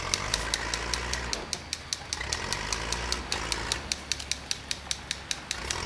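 Battery-powered Hess toy helicopter with its rotor spinning, giving an even, rapid clicking of about five or six a second over a low motor hum.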